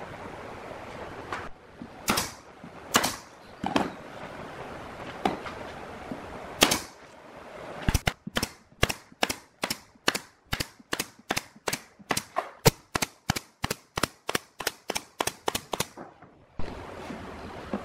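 Pneumatic nail gun driving nails into a plywood subwoofer cabinet panel: after a few scattered knocks, a fast, even run of about three shots a second lasting some eight seconds.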